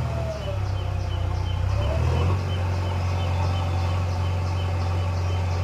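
JCB 3DX backhoe loader's diesel engine running steadily under work, its note shifting and settling about two seconds in.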